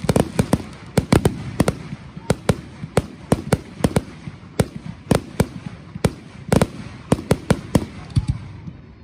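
Aerial fireworks shells bursting close by: a rapid, irregular series of sharp bangs, several a second, over a continuous background rumble.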